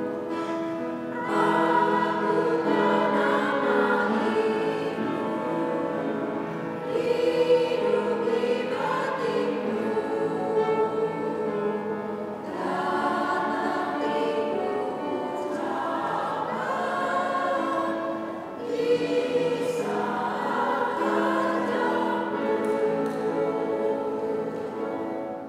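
Two-part women's choir singing a hymn in long phrases, with brief breaks about every six seconds.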